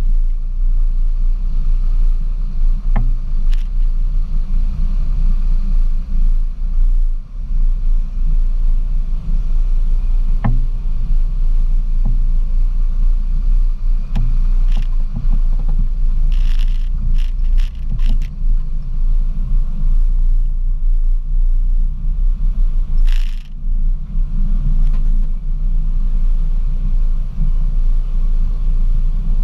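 Jeep Wrangler YJ crawling along a bumpy dirt trail: a steady low rumble of engine and drivetrain picked up by a camera on the hood, with a few short knocks and scrapes as it goes over ruts and brushes past vegetation, several close together about two-thirds of the way through.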